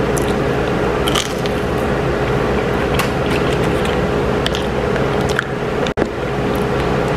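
Close-miked chewing and biting of fried chicken tenders, with a few short crisp crunches, over a steady background hum. The sound drops out for an instant about six seconds in.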